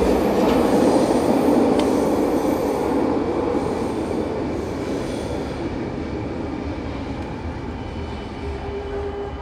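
SkyTrain metro train pulling out of an underground station platform, its running noise fading steadily as it leaves. A steady hum comes in near the end.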